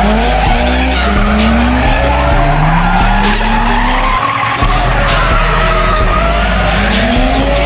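Drift car engine revving in repeated rising sweeps as the car slides, with skidding tyres, over music with a heavy bass line.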